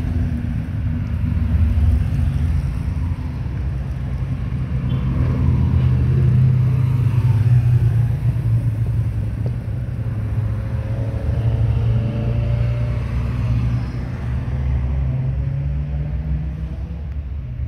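Engines of several classic sports and touring cars running as they drive past one after another at low speed in a convoy, a steady low rumble that eases near the end.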